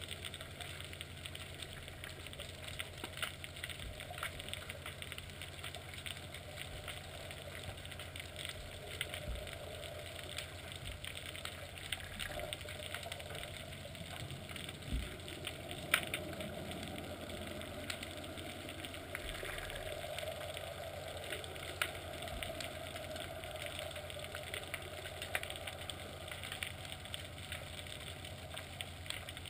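Underwater sound picked up by a video camera in its housing hanging below a fishing float: a steady low hum under a faint hiss, with many small clicks and ticks scattered through it and a few sharper ones.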